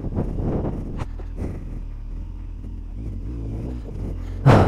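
Yamaha street motorcycle engine running at steady low revs, with a few short knocks and one loud thump near the end.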